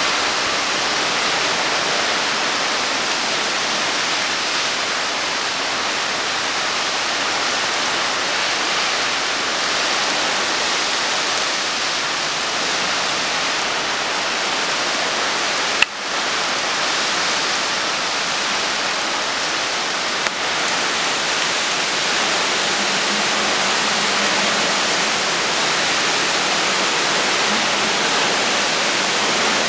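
Heavy rain pouring down in a steady, dense hiss, with a sharp click about halfway through.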